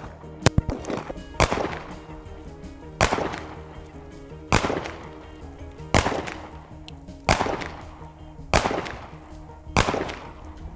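9mm CZ75 pistol firing about eight slow, evenly paced shots at a concrete wall, roughly one every one and a half seconds, each with a long trailing echo. The loud reports come with the bullets striking the concrete and bits of debris falling.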